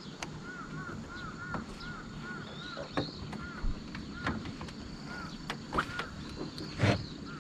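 Birds calling with many short, arched chirping notes, over scattered sharp clicks and knocks; the loudest knock comes near the end.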